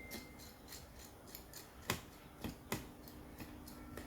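Faint small clicks and ticks of a screwdriver working loose the spring-loaded screws that hold a laptop's processor heatsink, with three sharper clicks about two seconds in.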